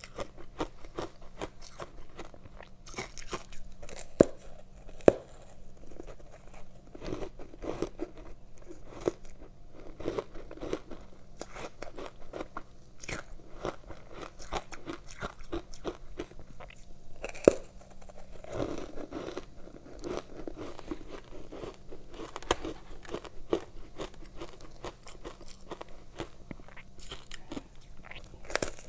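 Biting into and chewing a slab of matcha-powdered ice, close to the microphone: continuous crunching and crackling, with a few sharp, louder crunches standing out.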